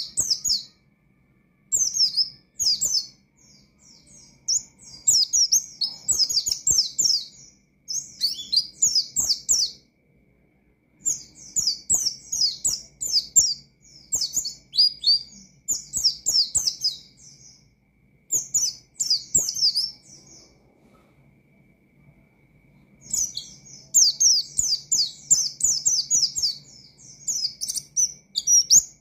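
A white-eye (pleci) singing loudly in fast runs of high chirps, in phrases of a few seconds broken by short pauses, the longest about two-thirds of the way in. A faint steady high whine and a low hum sit underneath.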